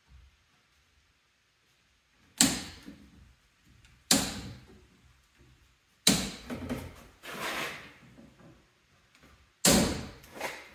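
Drawers being opened and shut: four sharp clunks, about 2.5, 4, 6 and nearly 10 seconds in, with a couple of seconds of rattling and sliding after the third.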